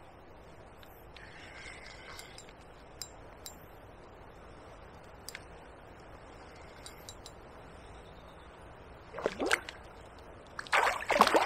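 A hooked chub splashing at the surface as it is played in close. There is one short splash about nine seconds in, then a louder flurry of splashes near the end, over a faint steady background with a few light ticks.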